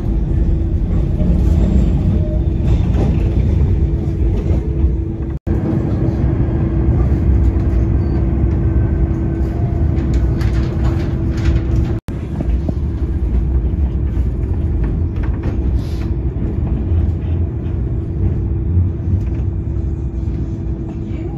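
Tram running along an elevated track, heard from inside the car: a steady low rumble of wheels and running gear with a constant motor hum. The sound drops out very briefly twice.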